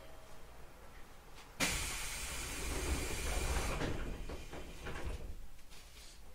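Passenger doors of an 811 series electric train working at a station stop. A sudden loud burst of air hiss about a second and a half in is followed by the doors sliding with a low rumble and a few knocks, then it dies away.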